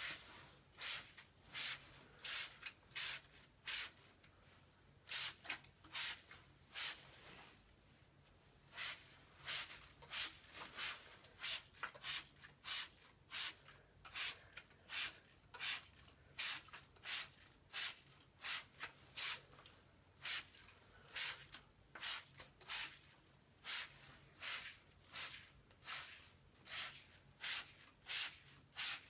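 A trigger spray bottle squirting in quick repeated pumps, about two squirts a second, with a brief pause about seven seconds in.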